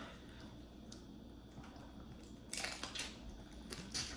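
Eating boiled crawfish by hand: a single click at the start, then from about two and a half seconds in a run of sharp crackles and smacks of shell being broken and meat sucked out.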